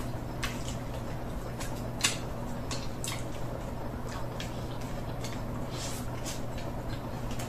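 Close-up eating sounds of someone eating chicken and rice with his fingers: irregular wet smacks and clicks of chewing, with one sharper click about two seconds in, over a steady low hum.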